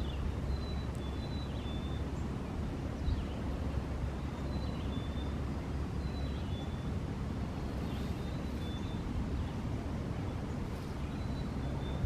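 Outdoor riverside ambience: a steady low rumble, with a small bird repeating short, high whistled notes every second or so.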